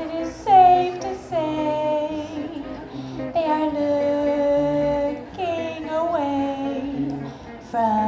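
Woman singing a slow melody into a microphone in phrases of long held notes, often sliding into the note, over a guitar playing sparse low notes. The loudest moment is a high note swooping down about half a second in.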